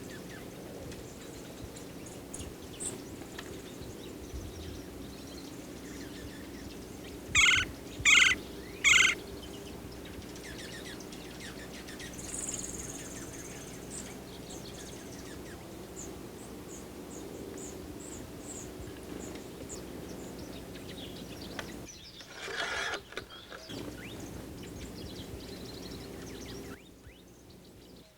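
Backyard birds calling in winter: three loud, harsh calls in quick succession about a quarter of the way in, then thin high notes and a rapid run of high chips, over a steady low hum. A short rushing noise comes near the end.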